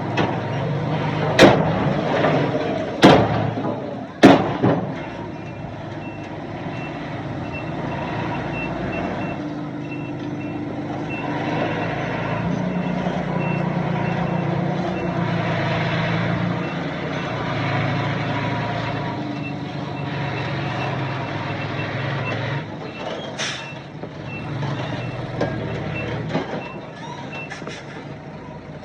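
Diesel engine of a heavy earthmoving machine (bulldozer or dump truck) running steadily under load, with a reversing alarm beeping repeatedly through most of it. Three loud bangs in the first few seconds and another later on.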